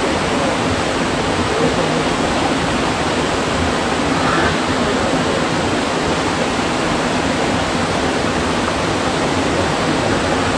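Mountain stream rushing over rocks: a loud, steady roar of running water that does not let up.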